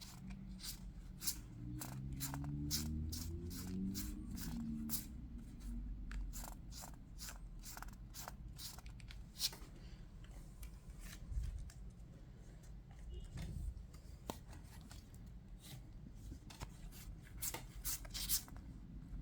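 Trading cards being handled and flipped through by hand: a string of light clicks and rubs as cards slide off and snap against one another, thinning out midway and picking up again briefly near the end.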